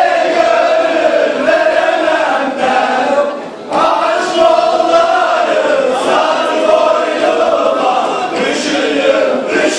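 A group of men singing loudly together in unison, with long held notes, broken by a short pause about three and a half seconds in.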